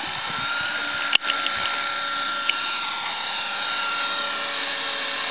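Small RC helicopter's motor and main rotor whining steadily as it lifts off on its training gear and hovers low. A sharp click about a second in and a fainter one over a second later.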